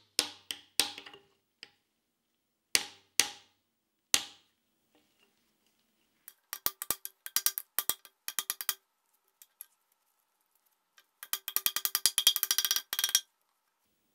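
Ball-pein hammer tapping a new oil seal into the end of a 1978 Series 3 Land Rover front axle casing, the steel ringing with each strike. A few heavy single blows come first, then a run of lighter taps, then a fast flurry of rapid taps near the end as the seal is driven home.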